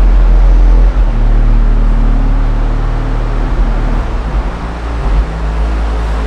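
Car subwoofers playing bass-boosted music very loud, the deep bass overwhelming everything else, with the low notes changing every second or few seconds.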